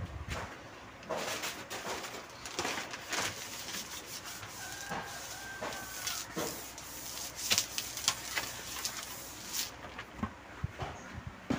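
Hand wiping and rubbing the surface of an opened Samsung LCD TV panel, a run of short irregular scraping rubs as sticky residue is cleared off. A brief whistle-like tone sounds near the middle.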